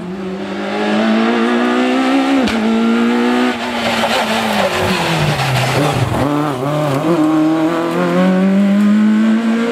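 Peugeot 106 rally car's engine running hard at high revs on a tarmac rally stage. The pitch falls through the middle as it slows for the bend and goes past, then climbs steadily as it accelerates away.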